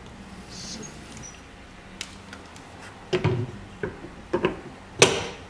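Handling clicks and knocks as a spool of braided fishing line and parts of a line-spooling station are moved about: a few light knocks about three seconds in, then one sharp click near the end.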